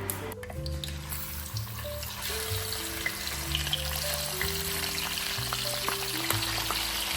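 Food sizzling in a hot frying pan, starting about a second in, with scattered small pops, over soft background music.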